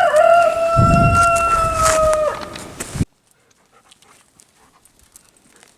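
A dog howling: one long, steady howl of nearly three seconds that drops in pitch at its end, with a low rumble under it. The sound cuts off suddenly about three seconds in, leaving near silence.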